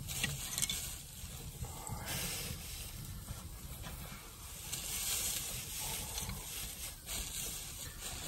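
Food sizzling softly in a pan on a wood stove, a steady hiss that swells and fades, with a few light clicks.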